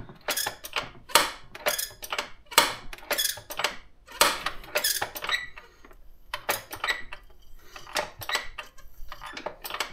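Metallic squeaks and clacks from hand-cranking a GY6-type scooter engine with a hand tool, spark plug removed: about two strokes a second at first, sparser and fainter after about five seconds.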